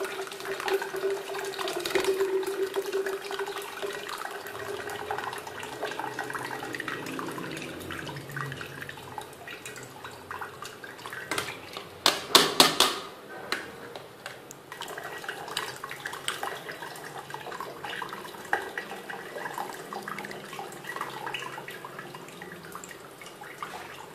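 Plum pulp and juice pouring and trickling from a steel pan through a plastic mesh strainer into a glass jug, with a short burst of loud clattering about halfway through.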